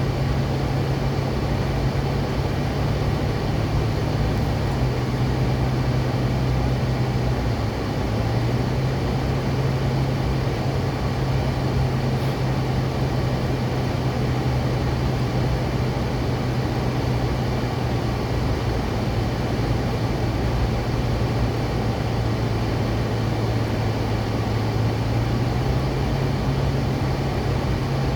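Car driving slowly: a steady low engine hum over road and tyre noise, its pitch shifting a few times as the speed changes.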